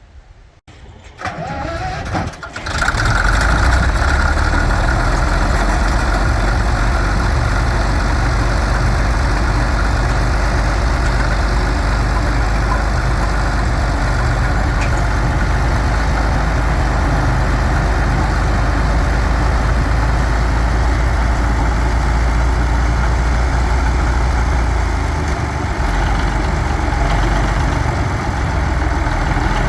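International Harvester TD24 crawler bulldozer's diesel engine starting about three seconds in, then running steadily at idle.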